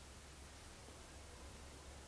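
Near silence: room tone, a faint steady hiss with a low hum underneath.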